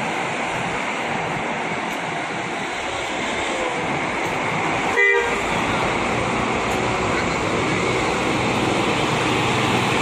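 Diesel engine of a large intercity coach running as the bus pulls slowly past, growing louder toward the middle and end. A short beep about halfway through.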